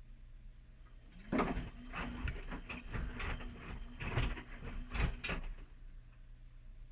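Whirlpool washing machine in its main wash: the drum turns for about four seconds, with a motor hum and a series of clunking, rattling knocks, then stops.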